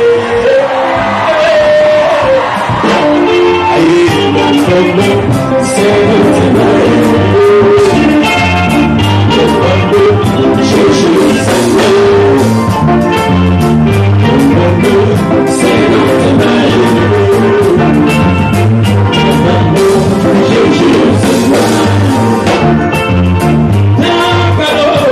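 Band music with a man singing over electric guitar, keyboard, bass and drums at a steady dance beat.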